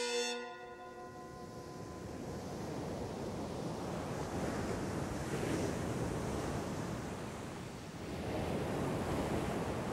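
Sea surf breaking against a rocky shore: a steady rush of waves that swells around the middle and again near the end.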